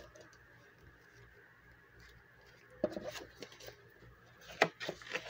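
Paper money and cash envelopes being handled over a plastic binder: a quiet start, then soft rustles and light clicks about three seconds in and again near the end.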